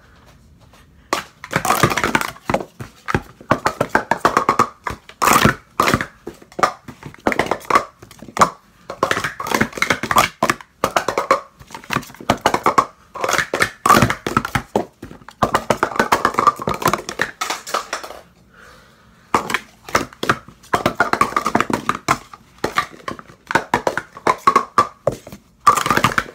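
Plastic Speed Stacks cups clattering in rapid bursts of clicks as they are stacked up and down through a sport-stacking cycle, with a short pause about two-thirds of the way through.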